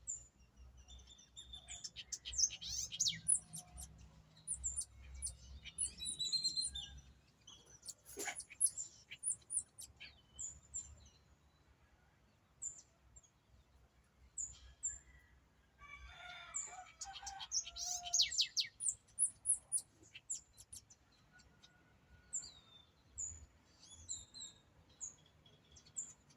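Wild birds chirping and singing: short, high chirps repeated every second or so, with busier bursts of rapid chirping twice, early and about two-thirds of the way through.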